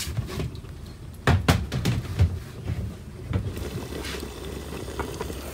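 Low rumble of wind on the microphone, with a handful of sharp knocks and clatters between about one and two and a half seconds in.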